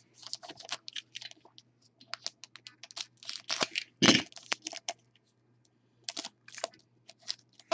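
Trading-card pack wrappers being torn open and crinkled and cards handled: a scatter of sharp crackles and rustles, loudest about four seconds in, over a faint steady hum.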